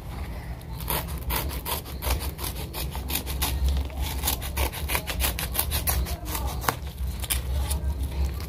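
Scissors cutting through a brown kraft-paper package, with the stiff paper crackling and rustling in many short irregular snips and scrapes. A low steady rumble runs underneath.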